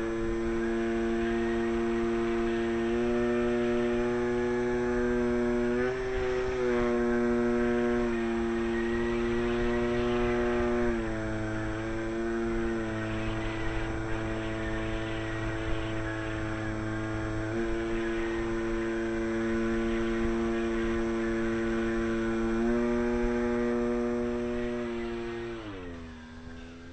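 Electric outrunner motor and propeller of an RC Tiger Moth biplane model, heard from its onboard camera in flight: a steady whine whose pitch steps up and down several times with the throttle, over a rush of air. Near the end the pitch glides down and the sound fades as the power is cut back.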